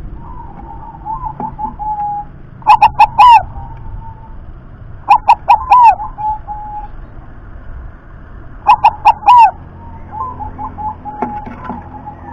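Zebra dove (perkutut) singing: three loud bursts of quick, ringing coos, each under a second long and a few seconds apart, with softer coos in between.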